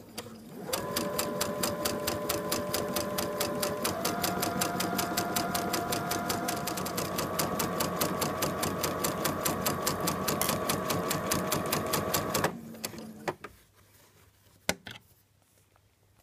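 Computerised sewing machine sewing a straight seam at a short stitch length: a steady motor hum with rapid, even needle strokes, the pitch stepping up slightly about four seconds in. It stops about twelve seconds in, followed by a few single clicks.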